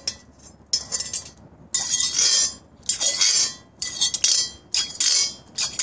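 A metal skimmer scraping and clinking against the inside of a hot cast-iron kazan in repeated strokes, roughly one a second, as sunflower oil is scooped up and splashed over the walls and rims during seasoning.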